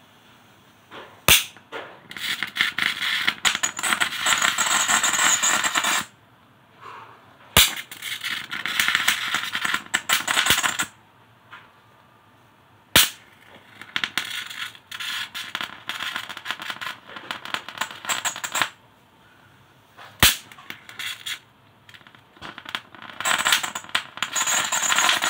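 High-voltage arc from a homemade flyback transformer with a voltage doubler: four sharp snaps as the arc strikes, each followed by several seconds of sizzling crackle while the arc holds, with short quiet gaps between. A last spell of crackle runs near the end.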